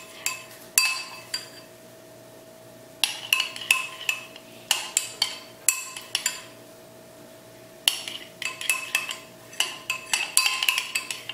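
A utensil clinking and scraping against a bowl as white school glue and water are stirred together. It comes in two runs of quick clinks with a quieter pause between them.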